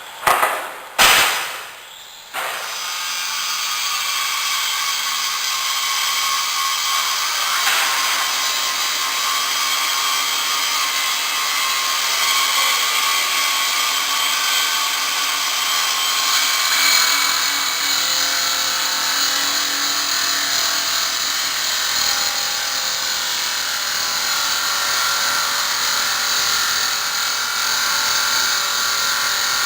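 Maqfort RM350 SRF automatic stone-cutting machine's circular saw running through a granite slab, a steady high grinding hiss from about two seconds in. It is preceded by two short loud bursts.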